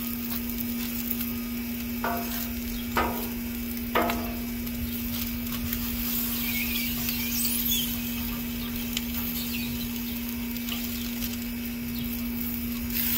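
Sausage patties sizzling on a Blackstone flat-top griddle as they are pressed flat with a steel burger smasher through parchment paper. There are short squeaks about two, three and four seconds in, and high, wavering screeches a little past the middle.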